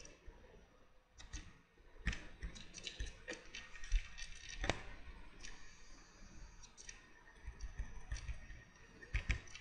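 Computer mouse clicking: a string of irregular, short, sharp clicks, the loudest a little under five seconds in.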